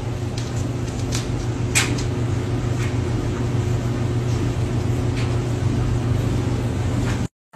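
Steady low hum with a few light, irregular clicks and taps, the strongest about two seconds in.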